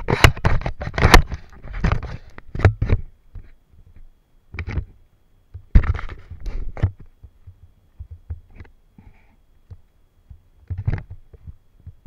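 Muffled rubbing, scraping and knocking of a handheld camera being moved about, in irregular bursts with a low rumble: heaviest in the first three seconds, then shorter bursts about five, six to seven, and eleven seconds in.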